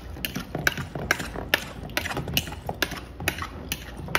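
A metal utensil stirring chunks of raw tuna in lime juice in a plastic mixing bowl. It clicks and scrapes against the bowl's side about two to three times a second.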